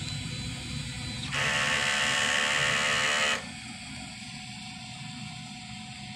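DTF printer running its head-cleaning cycle: a steady low machine hum, with a loud buzz that starts about a second in, lasts about two seconds and cuts off sharply.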